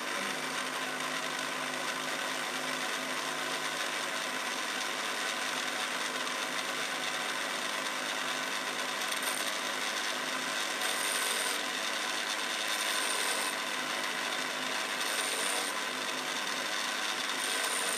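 Homemade Quorn tool and cutter grinder running steadily, its small grinding wheel rubbing against the end of a parting tool being faced off. From about halfway on, a brief hissing scrape comes about every two seconds as the tool is passed across the wheel face.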